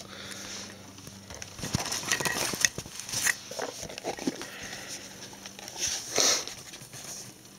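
Handling noise: rustling and light plastic clicks as sunglasses in a cloth bag are pushed into a hard sunglasses case, with a louder brief rustle about six seconds in.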